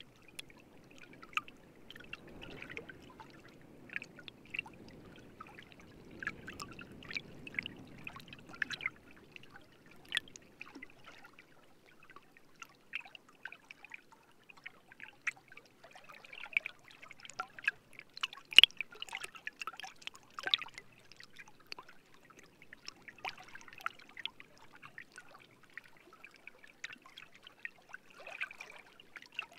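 Water trickling and bubbling, with many irregular small pops and drips and one louder pop a little past the middle. A low wind rumble sits underneath during the first third.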